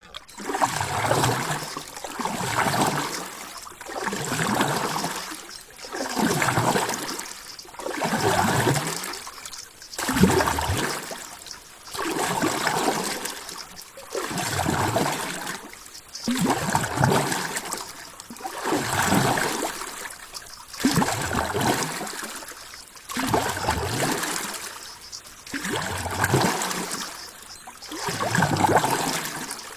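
Water sloshing and trickling in regular surges, swelling and fading about every two seconds.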